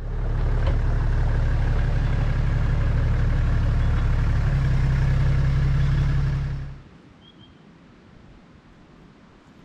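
Toyota LandCruiser Troop Carrier driving: a steady, loud engine and road drone whose note shifts about four and a half seconds in. It cuts off about seven seconds in, leaving a quiet outdoor background with a brief faint bird chirp.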